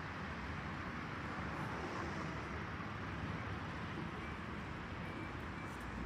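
Steady outdoor background noise: an even low rumble and hiss with no distinct events.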